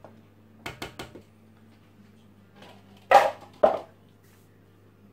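Kitchen handling sounds around a stand mixer: a quick run of four light taps about a second in, then two louder knocks about three seconds in, as a plastic mixing bowl is emptied into the steel mixer bowl and put aside.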